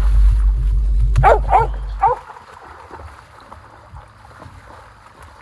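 A dog gives three quick, high yips, two close together about a second in and a third just after. They come over a heavy wind rumble on the microphone that drops away after about two seconds, leaving faint splashing through shallow floodwater.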